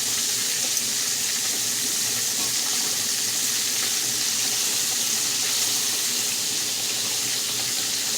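Pork chops frying in a frying pan, a steady sizzle.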